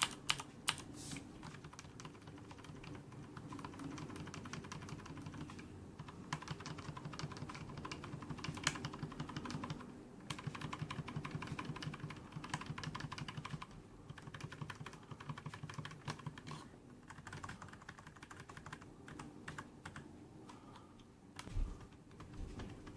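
Typing on a Corsair K70 mechanical keyboard with clicky Cherry MX Blue switches and no O-rings under the keycaps: a fast, steady stream of sharp key clicks with a few brief pauses.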